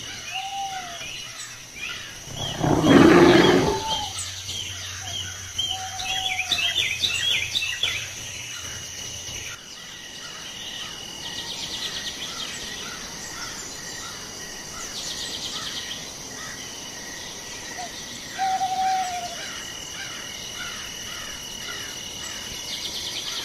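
Forest ambience: birds chirping and trilling over a steady high insect drone. About three seconds in there is one loud, low, noisy sound lasting about a second and a half.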